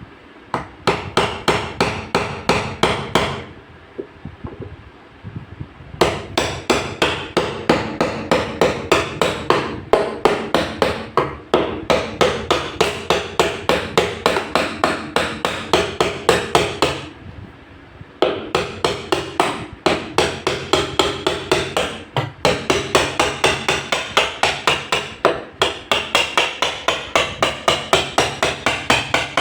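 A hammer striking repeatedly and quickly, about four blows a second, in long runs broken by a few short pauses.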